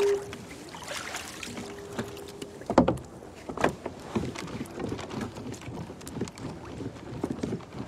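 Knocks and clicks of gear being handled on a fishing kayak, with one sharp knock near three seconds in, over light wind. A steady tone sounds briefly at the start and faintly again about two seconds in.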